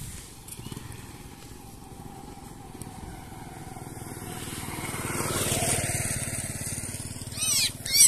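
Motorcycle engine running as it rides up the road, growing louder to its peak about five to six seconds in, then fading. Near the end a quick series of high, rising-and-falling animal cries starts.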